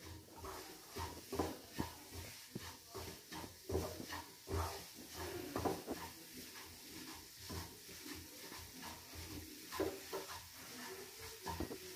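Wooden spatula stirring and scraping gram flour roasting in ghee in a nonstick kadhai: soft, irregular scrapes and taps about every half second.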